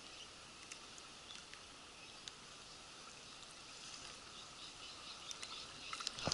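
Faint outdoor background hiss with a few small clicks, turning busier and louder with clicks and rustling near the end.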